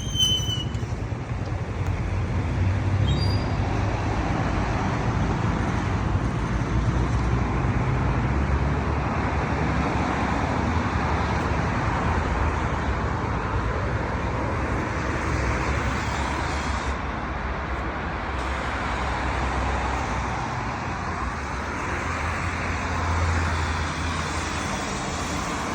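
Road noise of an electric car driving along: a steady rush of tyre and wind noise over a low rumble, with no engine sound.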